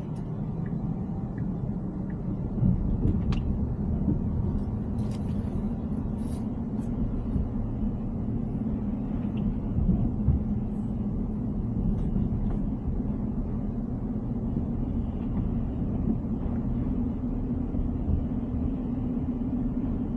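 Tesla Cybertruck driving: a steady low rumble of road and tyre noise, with a few faint clicks in the first several seconds.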